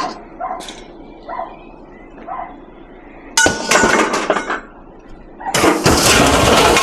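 Scrap being thrown onto a pile, clattering and clinking in two loud bursts, one about three and a half seconds in and a longer one near the end.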